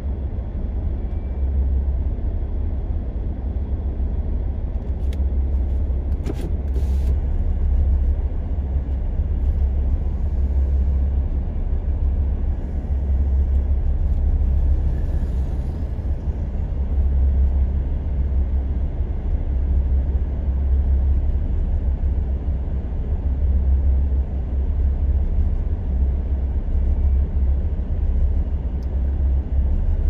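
Several Liugong single-drum road rollers driving in file, their diesel engines giving a steady, deep rumble. A few brief clicks come about five to seven seconds in.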